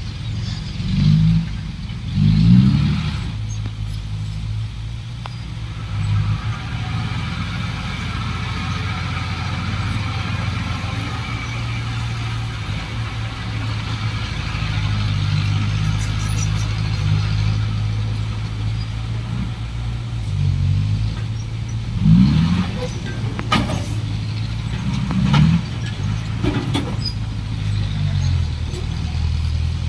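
Heavy diesel engines of dump trucks and a small bulldozer running steadily. They rev up briefly a few times, with a few sharp clanks in the second half.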